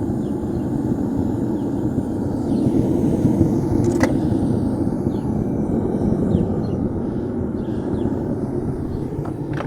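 Propane furnace burner firing steadily, a constant deep rush of gas and flame. A single sharp click comes about four seconds in.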